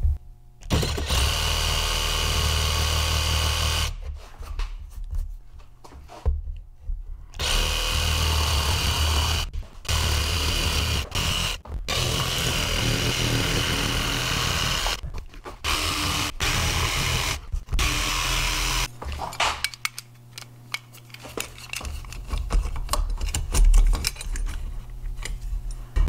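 Jigsaw cutting a rectangular pocket door handle cutout through a door, running in several cuts of a few seconds each with short stops between them. After about 19 seconds the saw stops, and light knocks and scrapes follow as the handle is test-fitted into the cutout.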